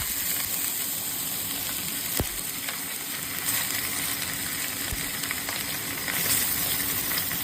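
A whole fish frying in hot oil in a pan: a steady sizzle, with a sharp knock about two seconds in.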